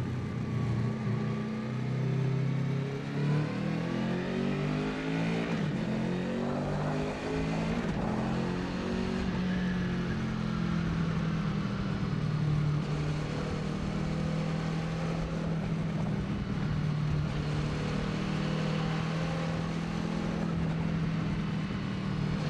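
Honda VFR800F's V4 engine running through a full exhaust, holding a steady low drone. Its higher notes rise and fall in the first half.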